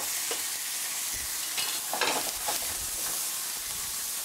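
Turbot frying in hot olive oil with a steady sizzle and crackle, with a few brief clicks about two seconds in.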